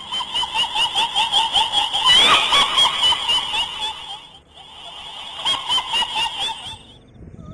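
Shrill, wavering female cackling laugh, a horror sound effect of the kind used for a kuntilanak ghost, in rapid pulses. It comes in two runs with a short break about four and a half seconds in.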